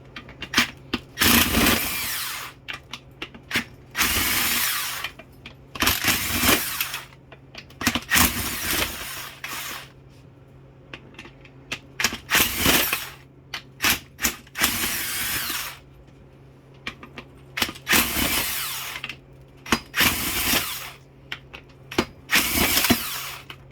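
Power impact gun spinning out valve body bolts in about nine short bursts of a second or so each, with sharp clicks and clinks of metal parts between them.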